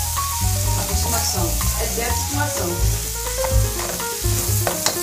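Diced salami, potatoes and tomato sizzling in a hot frying pan as a spatula stirs them, over background music with a pulsing bass.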